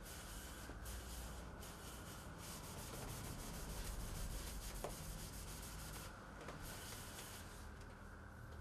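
Cloth pad rubbing against a spinning wooden box on a wood lathe, applying finish, over the steady low hum of the lathe running.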